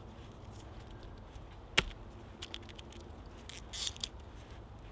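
Papery garlic skins crinkling and rustling as cloves are pulled apart and peeled by hand, loudest just before the end. One sharp click stands out about two seconds in.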